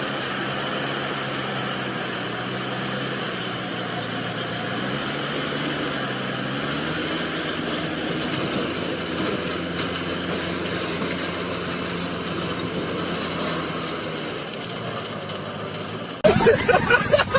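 Diesel engine of a large mining wheel loader running steadily, its revs climbing about six seconds in.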